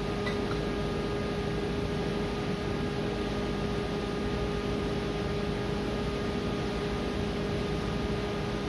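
Steady machine hum: a constant mid-pitched tone with fainter steady tones around it, over an even hiss, unchanging throughout.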